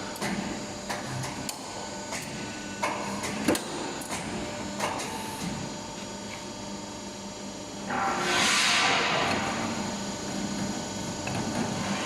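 CNC hydraulic pipe hole-punching machine running: a steady hum with several fixed tones, sharp clicks and knocks every second or so in the first five seconds, and a rushing hiss about eight seconds in that lasts about a second and a half.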